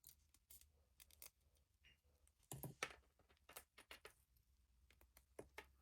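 Faint scattered clicks and crackles of electrical tape being pulled and wrapped around a capacitor by hand, with a louder cluster about halfway through.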